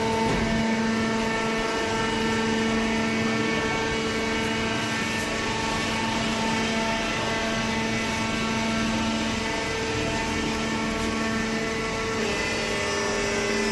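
Hydraulic cardboard baler running, its motor and pump giving a steady hum. The tone shifts slightly about ten seconds in and again near the end, as the load on the press changes.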